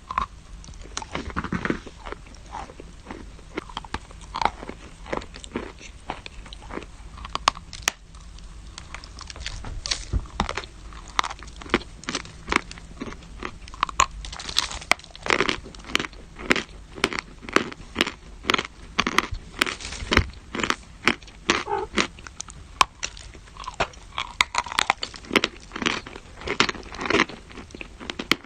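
Crunchy food being bitten and chewed: a run of short, crisp crunches, sparse at first, then about two to three a second from around halfway through.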